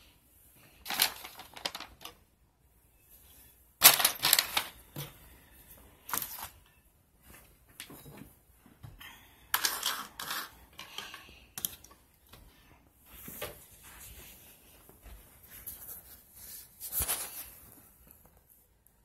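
Irregular clatter, clicks and rustling as small items are handled and set down on a wooden tabletop, in scattered bursts with quiet gaps between.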